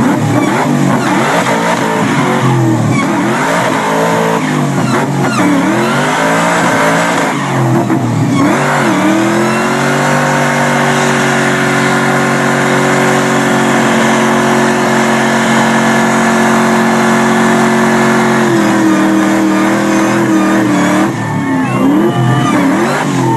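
Supercharged 4.6-litre V8 of a 2003–04 SVT Mustang Cobra doing a burnout. The engine revs up and down, then holds steady at high revs for about eight seconds while the rear tires spin. Near the end it eases off and revs again.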